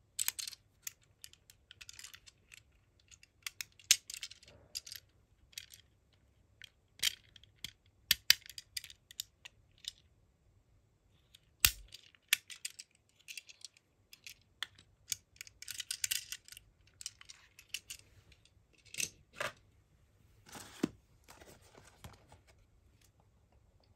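Close-up handling of a die-cast toy car: irregular sharp clicks and taps as the metal-and-plastic model is turned in the fingers, between short rustles. Near the end comes a longer rustle of a cardboard toy box being picked up.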